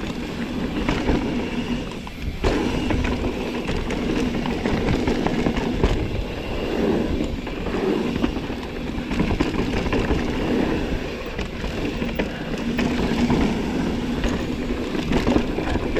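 Mountain bike riding down a rough dirt trail: a steady rumble of tyres over the ground, with constant rattling and small knocks from the bike.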